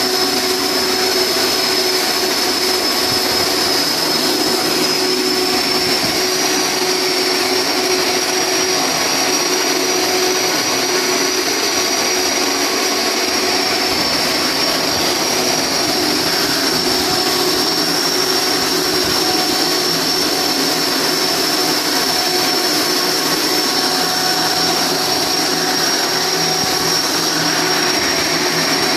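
Steady, loud industrial machinery noise: a continuous hiss with a thin high whistle that drifts slightly in pitch and a lower hum underneath, never pausing.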